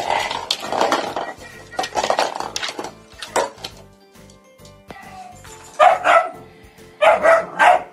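Background music with a dog barking over it. The barks come in quick runs, two short ones about six seconds in and three more just after.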